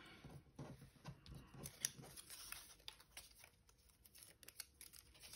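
Faint, scattered clicks and light paper rustles: small card-stock pieces being picked up and handled on a craft desk.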